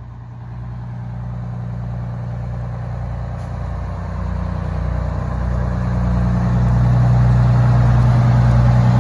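Engine of a vintage fire engine running at low speed as the truck pulls slowly out of the station bay, a steady low hum that grows steadily louder as it comes closer.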